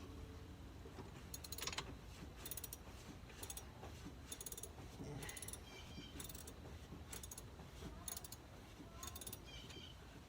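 Socket ratchet clicking in short runs, about once a second, as the alternator's top mounting bolt is turned down with a 10 mm socket.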